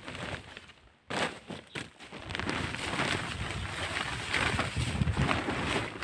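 Rustling of a plastic row-cover sheet being pulled back off seedling beds by hand, with footsteps on dry tilled soil. A few short scuffs come first, then about two seconds in the rustling turns continuous.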